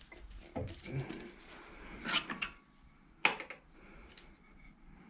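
Arbor press ram being raised off an electric motor's shaft: a few metal clunks and scrapes, with one sharp click a little over three seconds in.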